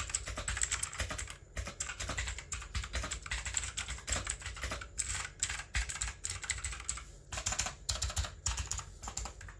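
Typing on a BlackShark Sixgill K4 mechanical keyboard with blue switches: fast, irregular clicky keystrokes in quick runs, with short pauses between them.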